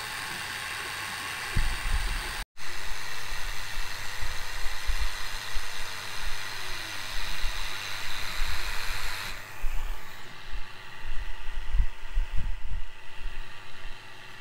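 AlgoLaser DIY Kit MK2 diode laser cutting plywood: its air-assist pump blows a steady hiss while the gantry's motors give faint rising and falling whirs as the head traces curves. Irregular low thumps run through it, and the hiss drops away about nine seconds in.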